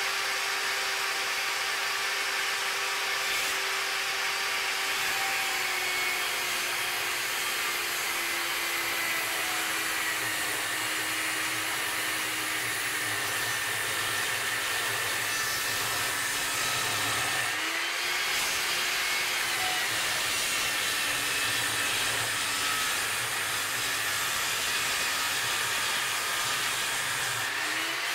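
A cheap table saw with a new ripping blade ripping a long plank of dense black locust: a steady motor whine over the hiss of the cut. The pitch sags slowly under the load, then drops and climbs back about two-thirds through, and again right at the end.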